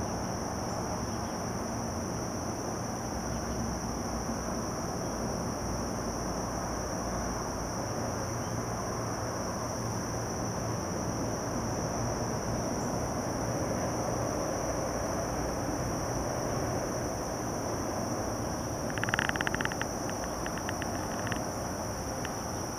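Steady high-pitched drone of an outdoor insect chorus, with a short burst of rapid pulsing chirps near the end.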